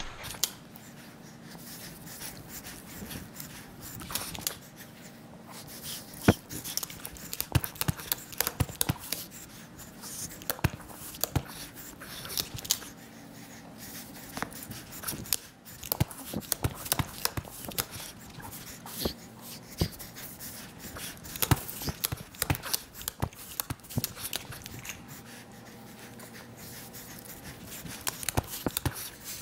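Hand work on a glued carpet seam: the pile is rubbed and pressed down by hand and with a small hand seam roller, giving a scratchy rubbing with many irregular sharp clicks and taps.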